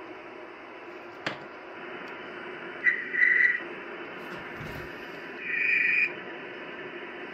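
Icom IC-751A HF transceiver's receiver hiss on the band, with a single click about a second in. Two short steady heterodyne whistles follow, one about three seconds in and one near six seconds, and the hiss dips while each one sounds.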